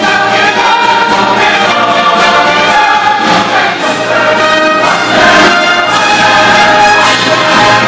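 A large choir singing with a live orchestra, brass prominent among the strings, in one continuous loud passage.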